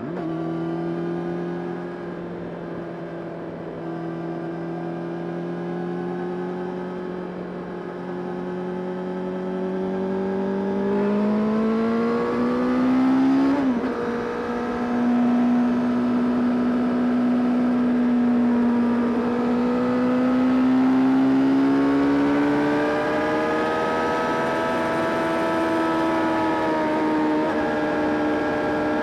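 Honda CBR600RR (PC37) inline-four engine under way, running at steady revs, then revving up with a quick gear change about 14 seconds in. It rises again about 21 seconds in and holds there.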